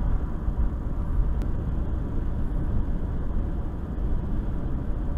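Steady low rumble inside a car with the engine running.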